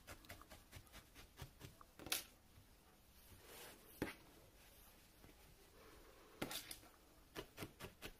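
Faint rustling of wool tops being pulled and shifted by hand on a burlap felting mat, with a series of short scratchy strokes, several of them close together near the end.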